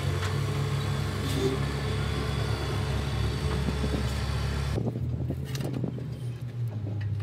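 An engine running steadily with a low hum. About five seconds in, the hiss over it drops away and a few sharp knocks are heard.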